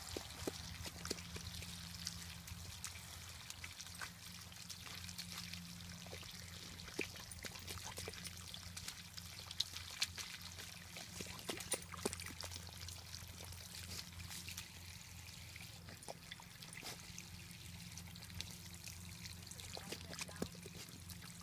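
Water trickling steadily from an open garden hose into wet soil, with scattered small splashes and clicks as an Airedale terrier paws and noses at the muddy puddle.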